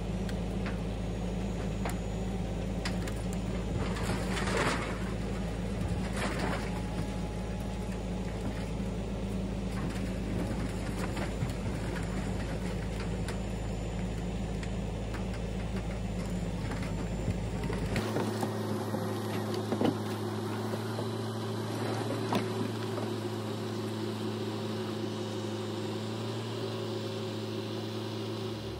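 Kubota KX080-4 excavator's diesel engine running steadily under work, with a few sharp knocks and cracks over it. The engine's low hum changes abruptly about two-thirds of the way through.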